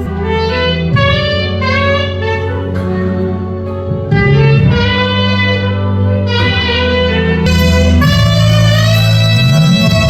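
Music: a wind instrument plays a melody of changing notes over held low bass tones, growing louder about four seconds in.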